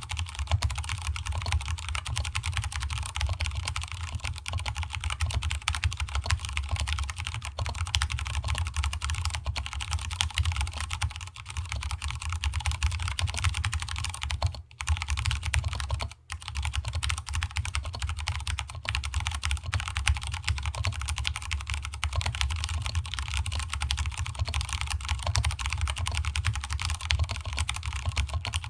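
Fast, continuous typing on a stock Vortex Cypher mechanical keyboard with Cherry MX Brown tactile switches and DSA keycaps, keys clacking densely, with two brief pauses a little past the middle. A hollow resonance from the desk underlies the key strikes.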